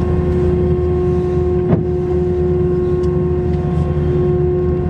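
Jet airliner engines at taxi power heard inside the cabin: a steady whine over a low rumble. One short thump about a second and a half in.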